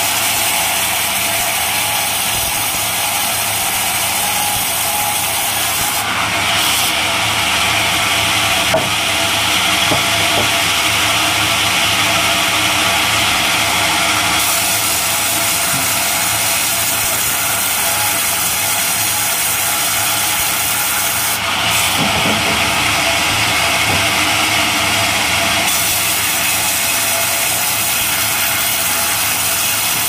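A vertical band sawmill running and ripping a plank of coconut palm wood, a steady loud sawing noise. Twice, for several seconds at a time, the sound turns harsher and more hissing.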